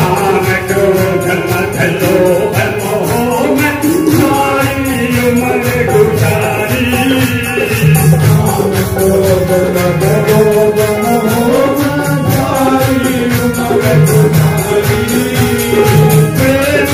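Live Haryanvi bhajan: a male voice sings through a handheld microphone over harmonium accompaniment, with a steady percussion beat running under it.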